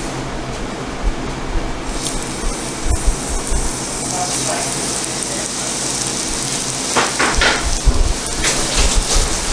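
Blackened-seasoned tuna steaks searing in hot clarified butter in a non-stick skillet over high heat: the sizzle starts about two seconds in as the fish hits the butter and keeps going steadily, with a few sharper spits near the end.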